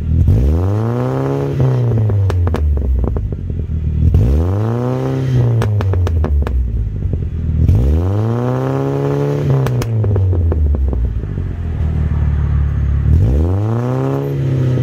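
Car engine revved four times through an aftermarket oval exhaust tip. Each blip rises and then falls back to idle, with a spatter of sharp crackles as the revs drop.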